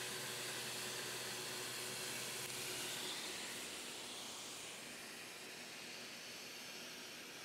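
Abrasive blasting: compressed air and garnet abrasive jetting from a sandblast nozzle at 100 psi, a steady hiss. It drops somewhat in level between about three and five seconds in.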